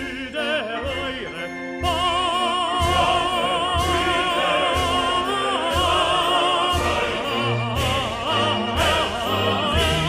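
Operatic singing with orchestral accompaniment: a solo voice with wide vibrato, growing louder about two seconds in.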